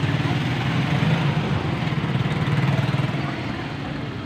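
An engine or motor running steadily, a low rumble with a fast even pulse.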